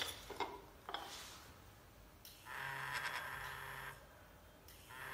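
A couple of light clicks as the shaken xóc đĩa bowl and plate settle, then a hidden vibrating result detector buzzes twice, each buzz a steady low hum lasting about a second and a half, the second starting near the end. Two vibration pulses are the device's signal for an even result (chẵn).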